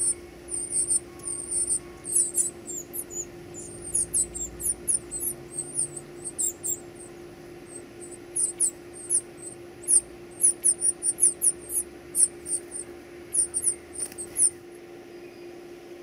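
Northern cardinal nestlings begging for food: rapid, very high-pitched squeaky calls in dense bursts, stopping near the end.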